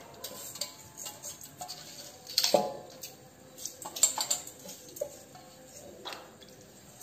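Steel bowl knocking and clinking against the rim of a steel pressure cooker as rice is tipped and scraped out of it by hand. A few sharp metallic knocks with a short ring, the loudest about two and a half seconds and four seconds in.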